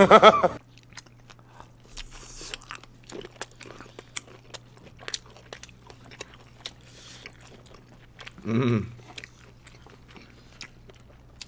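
Close-miked chewing and biting of kielbasa sausage: many small wet clicks and smacks of the mouth over a low steady hum. A short voiced sound cuts in at the very start and again about eight and a half seconds in.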